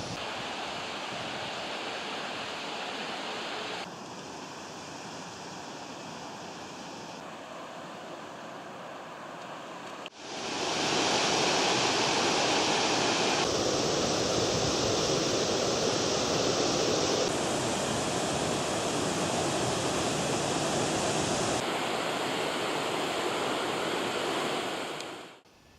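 Steady rush of flowing water, loud and even, shifting abruptly in level and tone several times and loudest in the second half before cutting off near the end.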